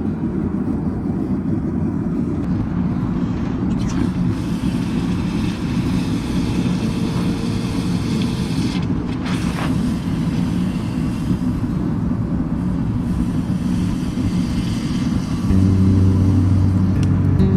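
Forge running with a steady low roar while a knife blank heats to red for quenching. About two seconds before the end it grows louder, with a steady hum joining in.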